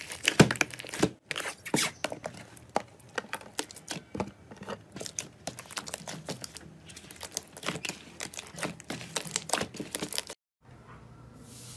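Glossy slime being squeezed and kneaded by hands: a dense, irregular run of wet clicks, pops and crackles as air pockets burst and the slime stretches and folds. It cuts off suddenly near the end, giving way to something fainter.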